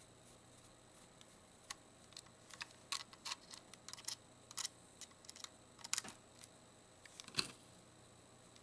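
Faint, irregular small clicks and ticks of a small screwdriver backing a screw out of a Sony S40 digital camera's plastic case. They start about two seconds in and stop about a second before the end.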